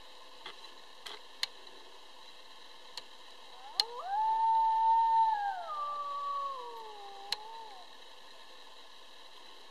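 A single coyote howl, about four seconds long, starting a few seconds in: it rises quickly, holds a steady pitch, then drops in steps and trails off. A few sharp clicks are scattered around it.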